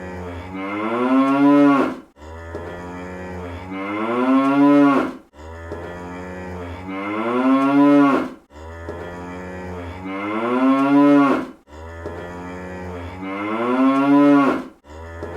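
Cartoon cow sound effect: a stylised moo repeated about every three seconds, each call rising in pitch and growing louder before cutting off sharply.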